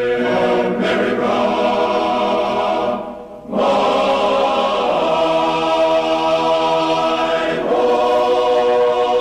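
A choir singing long held chords that change every few seconds, with a short break about three seconds in.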